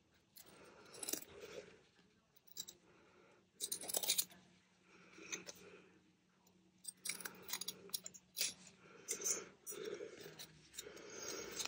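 Scissors snipping through fabric and card in short, irregular cuts, with rustling as the piece is turned and handled.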